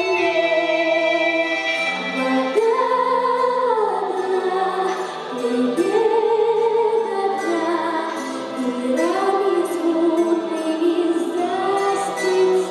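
A boy's unbroken voice singing a song into a microphone over an instrumental backing track, with long held notes.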